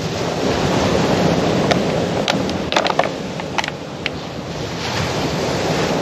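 Sea waves washing onto the beach, the surge swelling about a second in and again near the end, with wind on the microphone. Several short, sharp sounds come in the middle.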